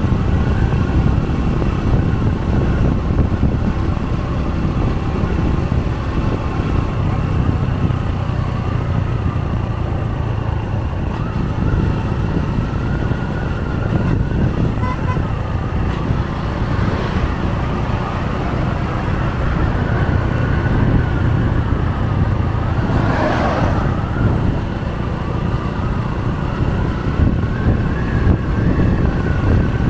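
Steady engine and road noise of a vehicle cruising along a highway, a low rumble with a faint wavering whine. About 23 seconds in, another vehicle rushes past briefly.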